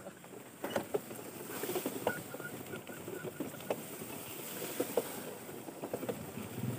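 Tall grass rustling and brushing with scattered small snaps and crackles as it is pushed through. A faint low hum comes in near the end.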